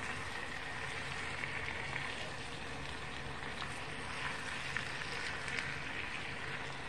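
Sliced potatoes and onions frying in vegetable oil in a cast-iron skillet, with a steady sizzle as a silicone spatula turns them over, and a few faint clicks.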